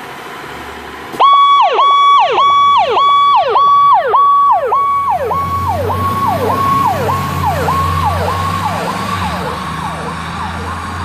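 Fire rescue truck's siren switched on suddenly about a second in, a fast repeating cycle that holds a high tone and then sweeps down, about one and a half times a second. It is loudest at first and fades as the truck drives away, with its engine rumbling low as it passes.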